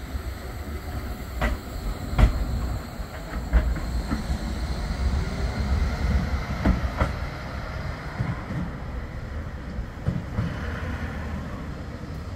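Bombardier Flexity 2 tram running past and away along the track: a low rumble with sharp clacks as its wheels pass over rail joints and points, several in the first half and two close together about seven seconds in.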